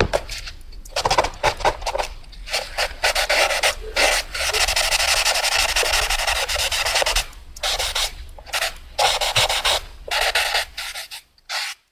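Pencil scribbling fast on paper: short scratchy strokes, then a long unbroken scribble of about three seconds, then more short strokes that stop near the end.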